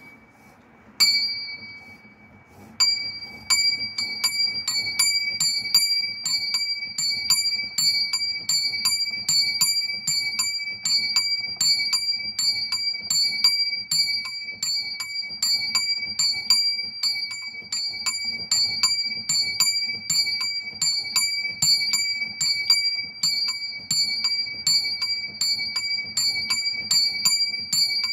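A small bronze bell swinging and ringing, its clapper striking about twice a second with a high, clear ring. A single stroke comes about a second in, then from about three seconds in it settles into even, steady ringing.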